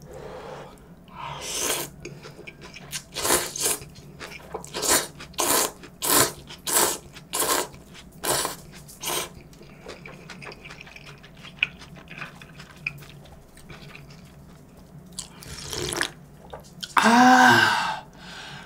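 Jjamppong noodles slurped off chopsticks: about a dozen quick wet slurps over the first half, followed by quieter eating sounds. Near the end comes a loud, short hum of the voice.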